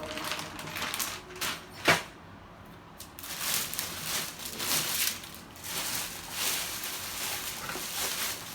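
Handling noises from unboxing: a single sharp click about two seconds in, then uneven rustling and knocking of packaging.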